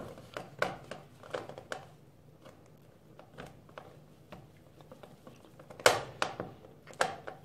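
Metal spoon stirring a thick paste of used coffee grounds, cocoa and powdered milk in a small cut-glass bowl: irregular scrapes and clinks of the spoon against the glass, with a few sharper clinks about six and seven seconds in.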